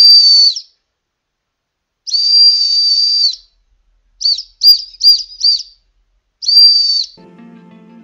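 Tesla Cyberwhistle, a stainless-steel whistle, blown in shrill blasts on one high, steady tone. A long blast is already sounding at the start, a second long blast comes about two seconds in, four quick short toots follow around four to five and a half seconds in, and one last short blast comes near the end.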